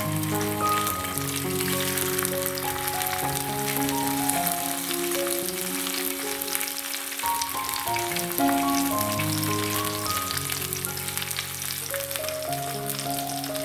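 Salmon fillet sizzling and crackling skin-side down in hot olive oil in a frying pan, over background music with a melody of held notes.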